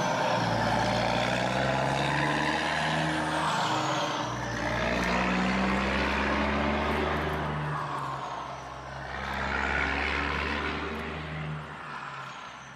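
Heavy vehicle engine running and passing by, swelling and fading in waves every few seconds, with a faint falling whine above it.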